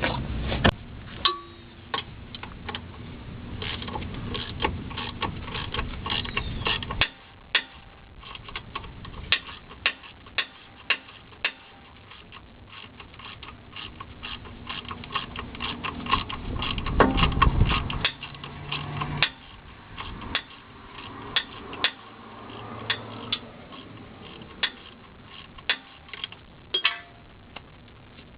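Ratchet wrench clicking in runs, working the 12 mm bolts on a CV axle flange, with a low rumble and knocks of tool handling.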